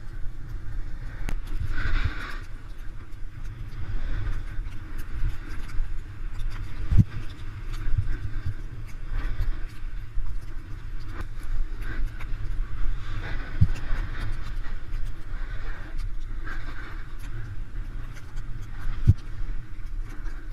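Wind rumbling across the microphone of a moving snowboarder, with the board's edge scraping over packed snow in hissing stretches. Three short knocks break through.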